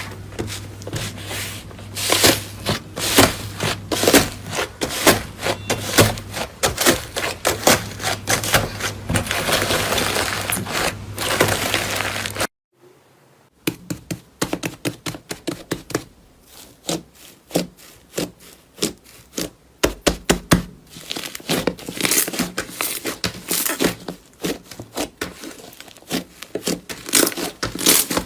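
Dense crackling and crunching from a crunchy ASMR material being handled close to the microphone. It comes in two clips, with a cut about twelve seconds in, and a steady low hum runs under the first clip.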